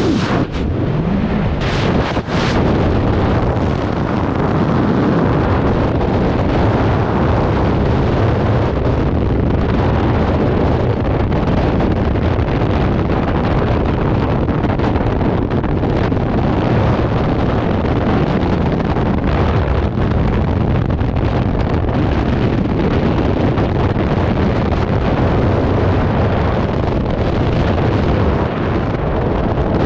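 Freefall wind blasting over a skydiver's camera microphone: loud, steady, low buffeting, with a couple of short bursts of hiss about two seconds in.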